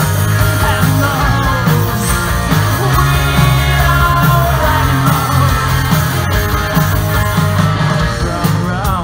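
Live rock band playing loud: electric guitars, bass guitar and drums, with singing, heard from within the crowd.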